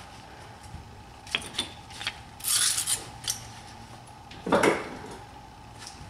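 Small metallic clicks and a short rattling scrape from brake parts being handled at a car's rear wheel, with a duller handling noise about four and a half seconds in.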